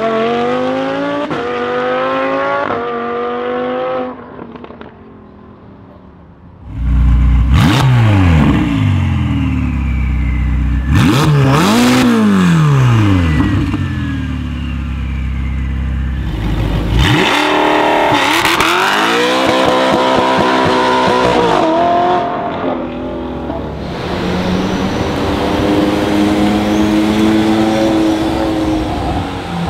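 Three modified supercar engines in turn. A Lamborghini Huracán's V10 accelerates hard through a couple of quick upshifts. Then a stationary Ferrari 488's twin-turbo V8 is revved in sharp blips, pitch rising and falling. Near the end a Porsche Carrera GT's V10 pulls away.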